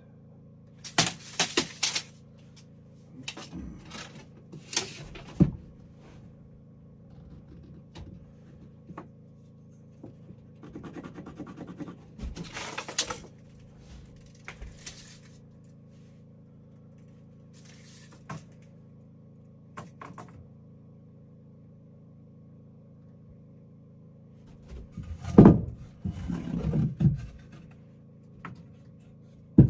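Scattered knocks, scrapes and clatter of objects being handled during hands-on building work, with a louder cluster of thuds near the end, over a faint steady hum.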